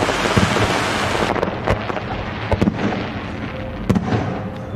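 Fireworks going off: a dense crackling hiss with sharp pops scattered through it, easing a little toward the end.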